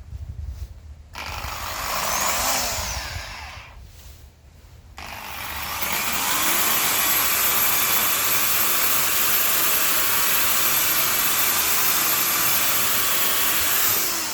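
A power tool motor running in two goes: a short run of about three seconds whose pitch rises and falls, then a longer steady run with a thin high whine that winds down near the end.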